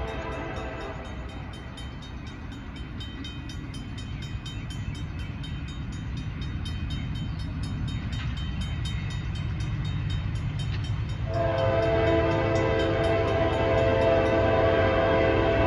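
Diesel freight locomotive's air horn sounding a steady multi-note chord. It fades about a second in and comes back louder about two-thirds of the way through, over the low rumble of the approaching train growing louder.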